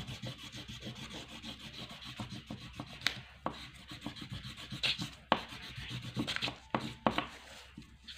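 Wax crayon scribbled back and forth on paper in rapid scratchy strokes, with a few sharper clicks as it lands.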